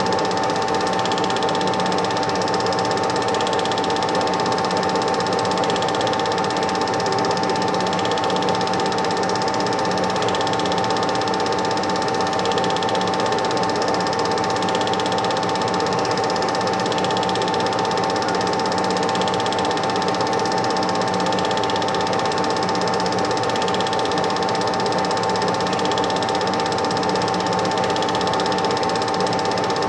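Super 8 film projector running: a steady mechanical whirr with a constant hum and a faint pulse about once a second.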